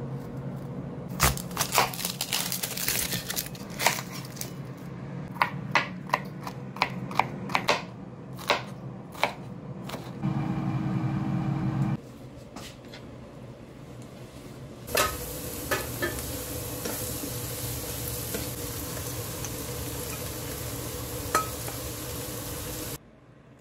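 Knife chops knocking on a plastic cutting board in a quick, uneven series, then a brief steady hum. After that, chopped chicken and onions sizzle in a frying pan while a spoon scrapes and stirs them.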